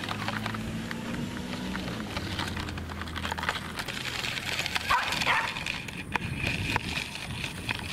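Pembroke Welsh corgi giving a short bark about five seconds in, over the scuffing of running steps on gravelly dirt. A low steady hum runs through the first half.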